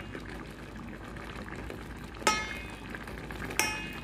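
Pot of eggplant simmering with a steady bubbling hiss while a metal spoon stirs it, the spoon striking the stainless steel pot twice with ringing clinks a little over a second apart, in the second half.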